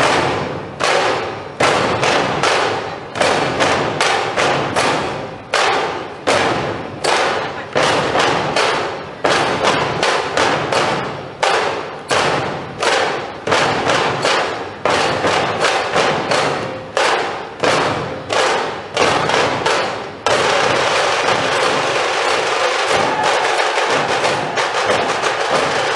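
Loud drum music: repeated hard drum strokes at a little under two a second, each ringing off. About twenty seconds in it gives way to a continuous drum roll.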